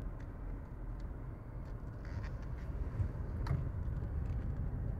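Low, steady rumble of road traffic, with a few faint clicks, the sharpest about three and a half seconds in.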